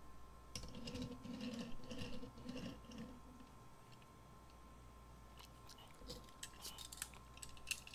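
Small clicks and taps of die-cast toy cars being handled and set against a toy race track's starting gate, the clicks coming thickest in the last few seconds. A faint low murmur sounds in the first few seconds.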